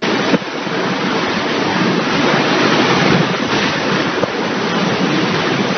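Storm-force wind blasting against the microphone: a loud, dense, steady rushing noise that cuts in suddenly.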